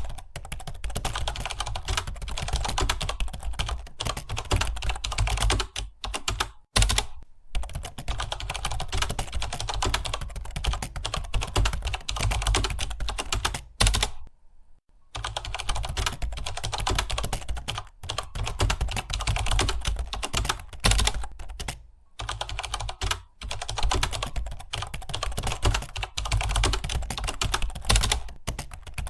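Fast, continuous typing on a computer keyboard, a dense stream of key clicks broken by a few brief pauses. The longest pause, about a second, comes about fourteen seconds in.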